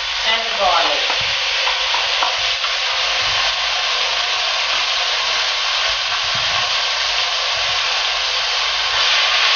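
Chopped onion sizzling in hot olive oil in a cooking pot: a steady frying hiss, stirred with a wooden spoon.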